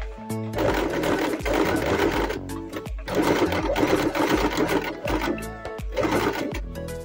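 Sewing machine stitching in three runs, the middle one the longest, over background music.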